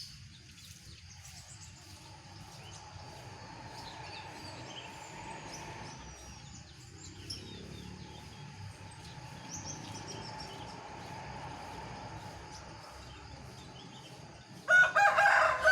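Small birds chirping and twittering in a tree, many short high calls over a steady background. Near the end a rooster crows loudly, its call falling in pitch as it ends.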